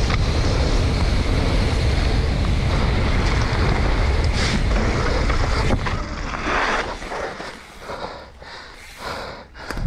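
Wind buffeting the microphone and mountain bike tyres rumbling over a dirt trail at speed. About six seconds in the noise drops off as the bike slows, leaving quieter, uneven rolling noise and a few sharp clicks near the end.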